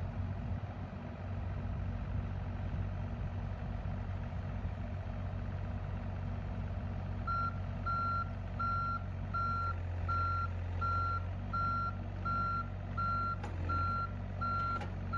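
John Deere 27D mini excavator's diesel engine running steadily; about halfway through, its travel alarm starts beeping, one high beep repeating about three times every two seconds as the machine moves on its tracks. A couple of sharp knocks near the end.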